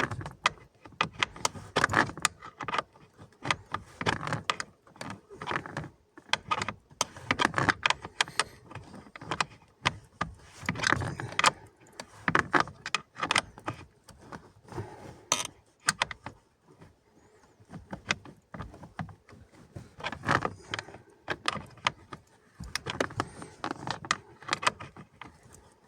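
Irregular clatter of clicks, knocks and small metal rattles, coming in short clusters with pauses between them, from tools and parts being handled during work on a car's heater fan.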